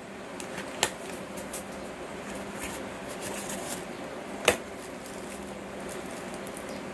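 Hands handling the small plastic-wrapped accessories of a power bank package: light crinkling and ticking of plastic, with two sharp clicks, one about a second in and a louder one about four and a half seconds in, over a steady low hum.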